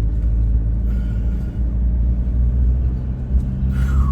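Four-wheel-drive vehicle driving slowly over a rough, potholed dirt track: a steady, heavy low rumble of engine and running gear.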